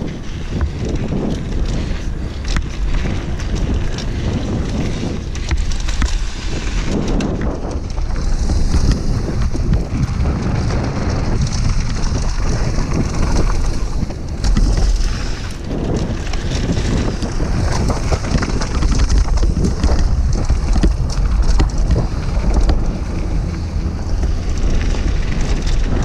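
Heavy wind buffeting on an action camera's microphone during a fast downhill mountain-bike descent, with a continuous low rumble. Tyres crunching over a loose gravel trail and the downhill bike rattling come through as many small clicks.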